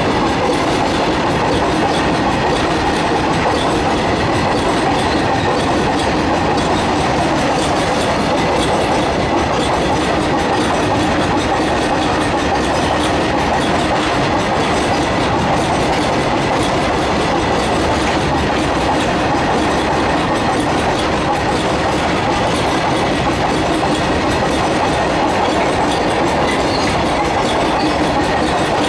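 Long freight train of open-top wagons rolling past right alongside: a steady, loud noise of steel wheels running over the rails, with no change in level.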